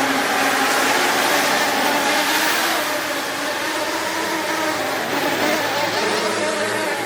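Brushless motors and propellers of a 5-inch FPV freestyle quadcopter (FlyFish Flash 2207 1850kv motors on a Fettec SFOC 50A ESC) whining in flight, the pitch drifting up and down with throttle over a rush of air noise.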